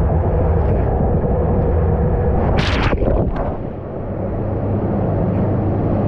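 Road-trip sound effect played by a multimedia water slide: a loud, steady, low engine-like rumble. A short hissing burst comes about two and a half seconds in, after which the low rumble eases.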